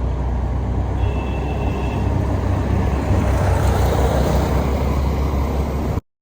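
A motor vehicle driving along the road, with a steady low engine drone and road noise. A faint short high tone sounds about a second in, and the sound cuts off abruptly near the end.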